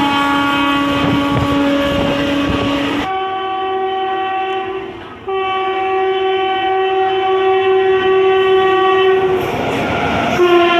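Indian Railways locomotive horn sounding in long, steady blasts. One blast ends abruptly about 3 seconds in, and two higher-pitched blasts follow with a short break between them. Near the end a rush of train running noise comes before the horn sounds again.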